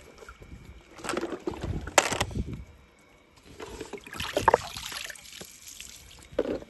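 Pool water sloshing and splashing as a skimmer net on a pole is swept through a swimming pool and lifted out with a plastic toy truck in it, water running off. Two rushes of splashing, about a second in and again about four seconds in, with a sharp knock near two seconds.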